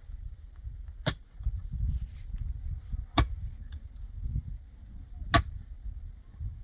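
Three sharp knocks, about two seconds apart, over a steady low rumble.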